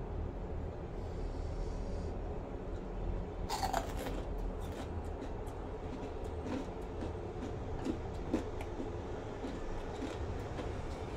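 Chewing and crunching of crispy fried chicken skin: irregular crisp crackles, the loudest a little over three seconds in, over a steady low hum.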